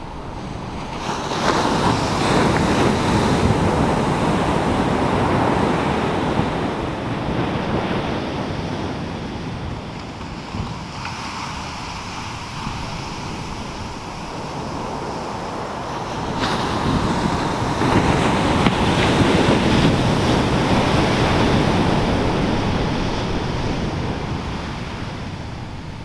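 Pacific Ocean surf on a sandy beach: two waves break and wash up the shore, one shortly after the start and another just past the middle, each rush of water swelling and then slowly fading.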